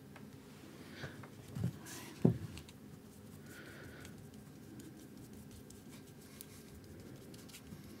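A paintbrush dabbing and scrubbing acrylic paint on a small stretched canvas, a faint scratchy patter. About two seconds in there are a couple of dull knocks, the loudest sounds, as the canvas is picked up and handled.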